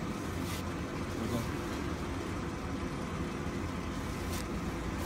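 Steady low hum of running factory machinery, with a few short clicks of metal parts being handled.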